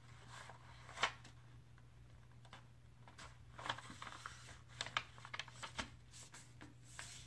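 A sheet of paper being folded and creased by hand: scattered short rustles and crinkles as it is handled and pressed flat on a table, the sharpest about a second in.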